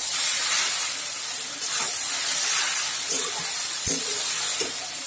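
Noodles sizzling in a hot wok as they are stir-fried and tossed with a metal spatula, with a few knocks and scrapes of the spatula on the pan about three to four seconds in.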